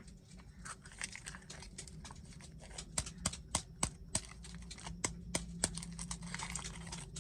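Plastic snack packaging handled and unwrapped by hand: irregular sharp clicks and taps with plastic crinkling, and a longer rustle near the end.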